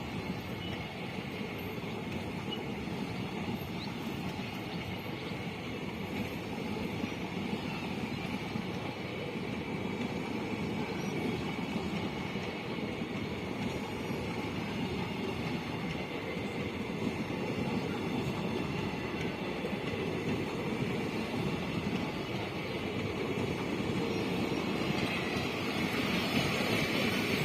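Train running at speed over the rails, a steady rumble of wheels that grows slowly louder, with a thin high tone above it that strengthens near the end.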